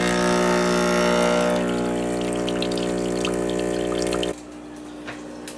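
Espresso machine's pump humming steadily while a shot pours into a glass, then cutting off abruptly about four seconds in as the shot ends.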